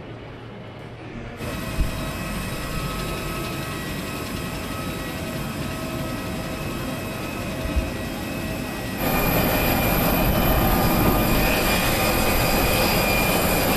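Airliner engines running with a steady whine over a rushing noise, jumping suddenly louder about a second in and again about nine seconds in.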